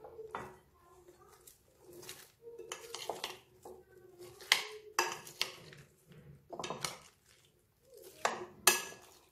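Metal spoon clinking and scraping against a bowl in irregular strokes while mixing cauliflower florets into thick batter.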